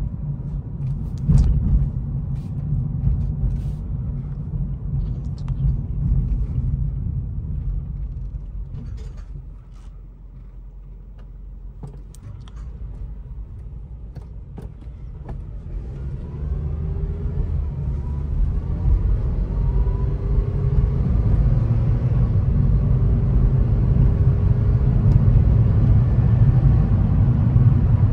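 A 2009 Honda Civic LX being driven, its 1.8-litre four-cylinder engine and the road making a steady low rumble. The rumble eases off about ten seconds in, then builds again from about sixteen seconds with a rising engine note as the car accelerates. A few sharp clicks come early on.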